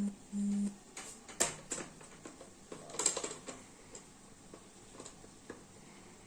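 Scattered sharp clicks and taps of plastic toy pieces being handled and fitted together, with two short low humming tones right at the start.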